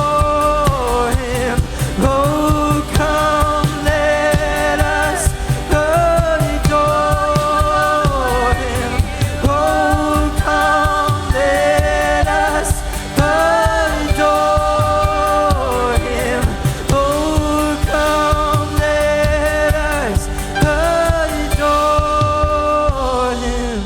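Live worship music: voices singing long held notes over a band with a steady beat.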